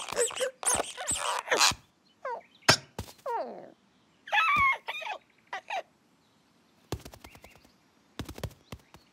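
Cartoon bird character's squawks and gliding cries, mixed with short thumps and knocks, then a run of quick light clicks near the end.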